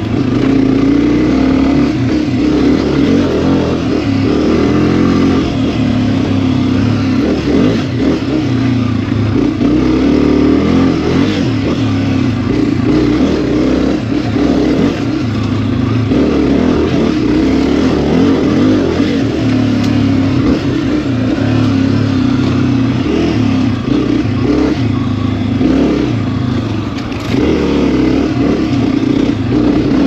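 Honda CRF250F dirt bike's single-cylinder four-stroke engine running under way, its pitch rising and falling with the throttle. It eases off briefly near the end, then pulls again.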